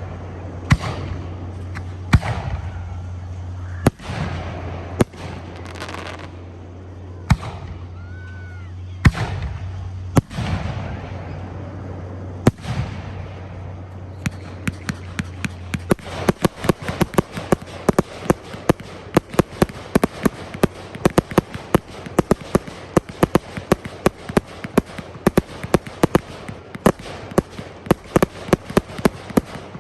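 Fireworks display. Aerial shells burst with a sharp boom every second or two, then about halfway through a dense run of rapid cracks and pops, several a second, keeps going to the end. A steady low hum sits under the first half and stops about halfway through.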